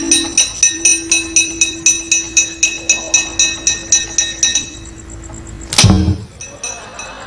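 Wayang kulit kepyak, the metal plates on the dalang's puppet chest, struck in a fast even run of about four to five bright metallic clanks a second over a steady low tone, stopping about four and a half seconds in. A single sudden loud hit follows near the end.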